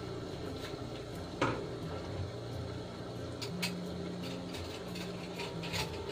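Water boiling in the pot beneath a stainless-steel double-boiler bowl: a steady low rumble, with a sharp metallic tap about a second and a half in and a few lighter clicks later.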